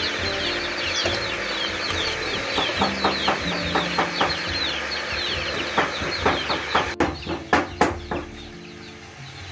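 Chickens clucking, with rapid high peeping, over a steady hiss. Metal tongs knock and clink against a stainless steel stockpot several times, loudest near the end.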